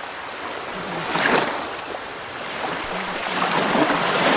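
Ocean waves washing on a shore, a steady rushing with two swells, one about a second in and a bigger one near the end.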